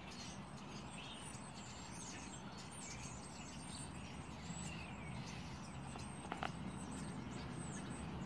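A flock of small songbirds chirping and calling in the trees, with many short, high, down-slurred chirps overlapping throughout. They sound over a faint steady low background rumble.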